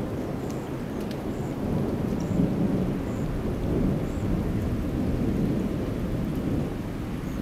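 Low, continuous rumble of thunder from a lightning storm, swelling a little a couple of seconds in.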